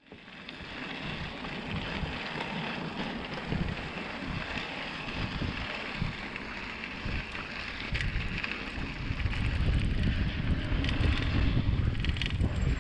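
Mountain bike riding a dirt trail: wind buffeting the camera microphone over a low rumble of tyres and the bike, with a few small rattles. The rumble grows louder in the last few seconds.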